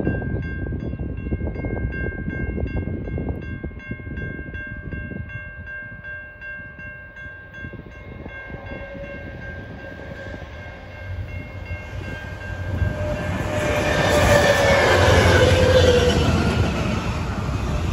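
Diesel-electric freight locomotives approaching and passing, their engine and wheel noise building over the second half and loudest a few seconds before the end, with a tone sliding down in pitch as they go by. A repeating ringing chime sounds through the first half and fades.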